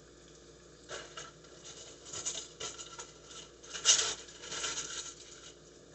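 Sliced sausage and onion sizzling in oil in a frying pan, with irregular crackles and spits starting about a second in and loudest around the four-second mark.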